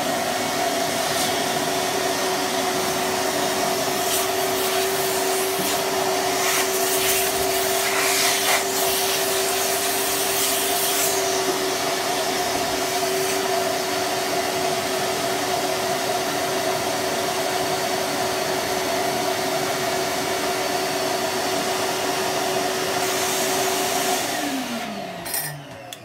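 Vacuum cleaner (Hoover) running steadily with a constant motor hum, sucking up the water that spills from the boiler's heat exchanger as it is unscrewed. A few brief rougher surges come in the middle, and near the end the motor is switched off and winds down with falling pitch.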